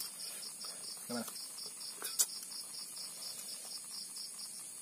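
Night insects calling in a steady chorus: a high chirp pulsing about five times a second over a continuous higher buzz. A single sharp click comes about two seconds in.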